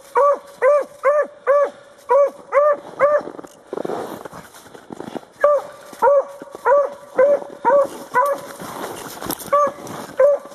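Beagle giving tongue on a rabbit's scent trail: a quick run of short, ringing barks, about three a second. They break off for a couple of seconds about three seconds in, then carry on.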